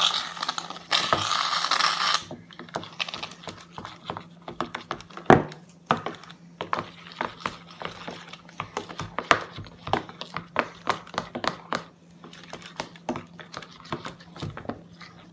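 Slime being squished and kneaded by hand: a run of irregular sticky clicks and pops. A hiss lasting about a second sounds near the start.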